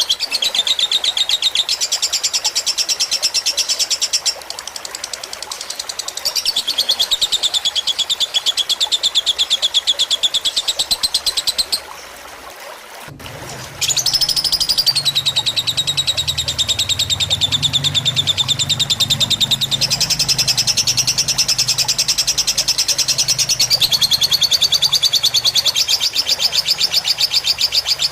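Lovebird singing long, rapid chattering trills, the extended song prized in a 'fighter' lovebird, over a steady trickle of water. The trill shifts up and down in pitch every few seconds and breaks off for about two seconds near the middle before starting again.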